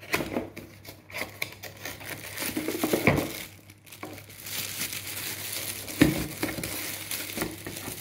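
Plastic bag crinkling and cardboard packaging rustling as a wrapped power adapter is lifted out of its small box, in irregular bursts with clicks, and one sharp knock about six seconds in.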